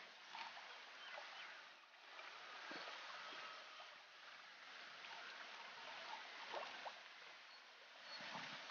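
Faint outdoor background: a steady hiss with a few faint, scattered ticks and chirps.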